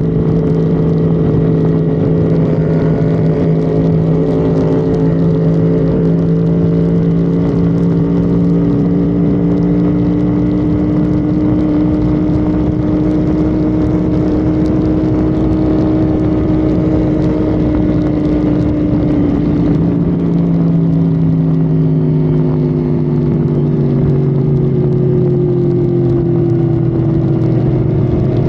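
Honda Civic FD's engine running hard and steady at highway speed, with heavy road and wind noise. The engine note drifts slowly up and back down, and changes about two-thirds of the way through.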